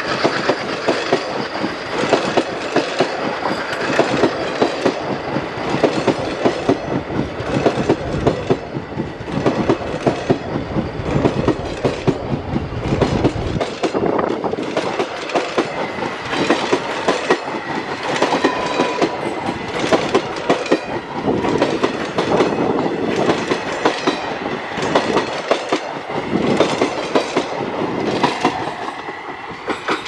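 Passenger coaches of an express train rolling past at speed, their wheels clattering in a steady repeating clickety-clack over the rail joints. It fades near the end as the last coach moves away.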